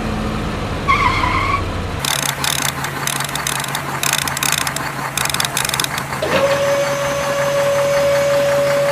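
Toy cement mixer truck's plastic gears clicking like a ratchet, about two clicks a second, with a steady tone coming in about six seconds in.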